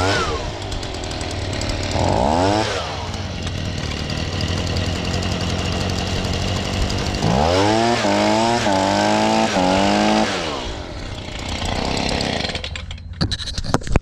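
Stihl BG55 handheld leaf blower's two-stroke engine running on a freshly fitted aftermarket carburetor. It idles with two quick throttle blips in the first few seconds, is revved up about halfway through and held high and wavering for about three seconds, then settles back to idle before stopping near the end.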